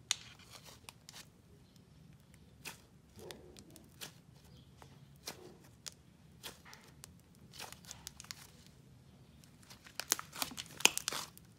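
Cloud cream slime, a thick clay-like icing slime, being squeezed and stretched by hand, giving scattered sticky crackles and small pops. They bunch up and get louder about ten seconds in.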